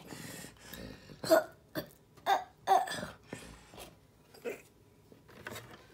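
Several short, separate vocal sounds from a person, spaced about half a second apart, with quiet gaps between them.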